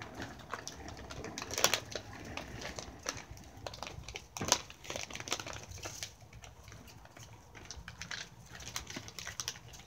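Irregular light clicks and taps from a phone being handled, with two louder knocks, about one and a half seconds and four and a half seconds in.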